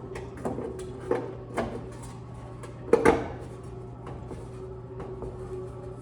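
Knocks and clatter of hand work on a fan-coil blower motor and its mounting parts as it is shifted into place: several scattered knocks, the loudest about three seconds in, over a steady low hum.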